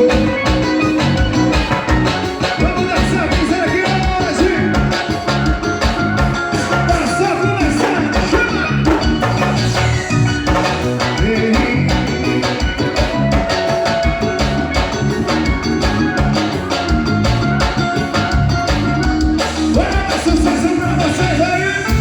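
Forró band music playing with a steady, driving beat and sustained melodic lines.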